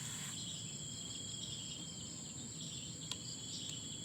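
Insects chirping steadily: a high continuous trill with a pulsing chirp a few times a second over it, and a faint low hum beneath. There is a light click about three seconds in.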